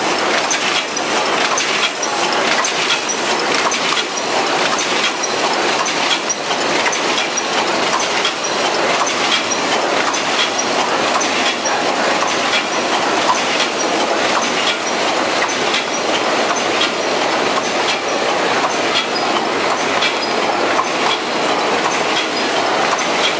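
High-speed ZSBJ-100 paper cup forming machine running in production, a steady, rapid mechanical clatter that does not let up.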